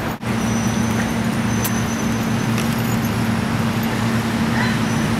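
Steady low mechanical hum over a constant noisy background, with a few faint clicks.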